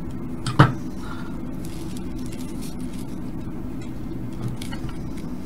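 Objects being handled on a workbench: one sharp knock about half a second in, then a lighter tap near the end, over a steady low hum.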